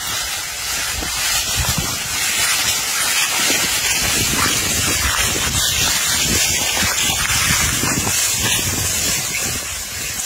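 Wind blowing across the microphone, giving a loud steady hiss over an uneven low buffeting rumble.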